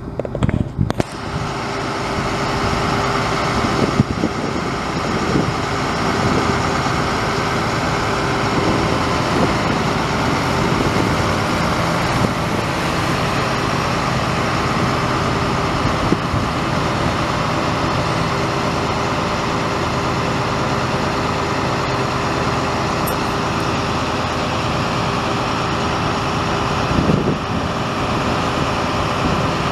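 International DT466 7.6-litre inline-six turbo diesel of a bucket truck running steadily, a constant heavy drone that comes up about a second in and holds.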